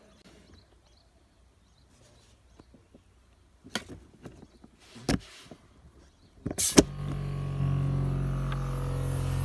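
A couple of sharp clicks, then about two-thirds of the way in an ARB 12-volt electric air compressor switches on and runs with a steady motor hum.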